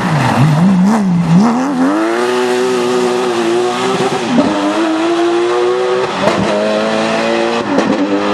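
Porsche rally car engine at full throttle: revs dip and flare in the first second or so, then it accelerates hard up through the gears, with sudden pitch drops at the upshifts about four and a half, six and eight seconds in.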